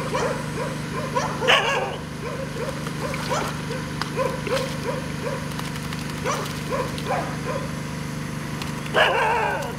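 Dog making a quick run of short, pitched calls, each rising then falling, two or three a second. Louder, longer calls come about a second and a half in and again near the end, over a steady low hum.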